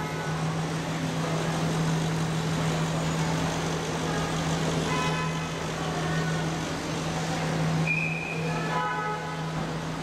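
Steady low hum over general street and traffic ambience, with a few brief faint pitched sounds now and then.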